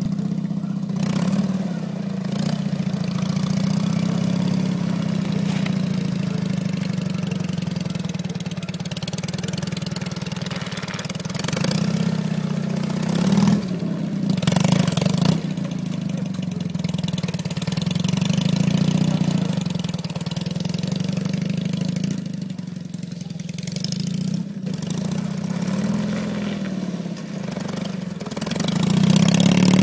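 Dnepr sidecar motorcycle's flat-twin engine running under way, its note rising and falling with the throttle and loudest near the end.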